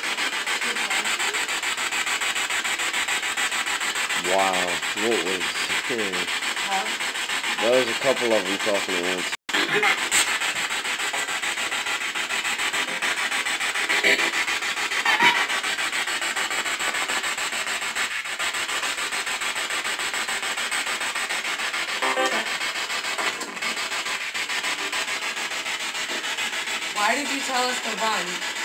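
A steady, loud rasping hiss with a few short warbling, wavering tones about four to nine seconds in and again near the end. The sound cuts out for an instant about nine seconds in.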